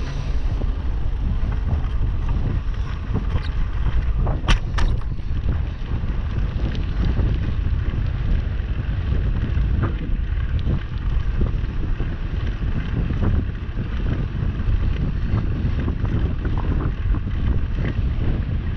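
Wind buffeting the microphone of a camera riding on a moving bicycle, a steady low rumble over the hum of tyres on asphalt. A couple of sharp clicks stand out about four and a half seconds in.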